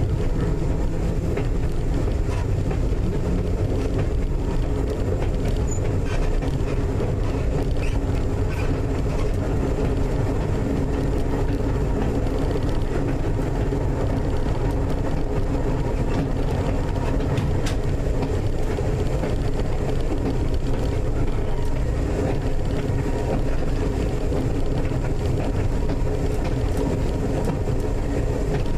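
Electric interurban railcar North Shore Line 749 running at steady speed, heard from inside the car. Wheels on the rails give a continuous rumble, with a constant hum over it.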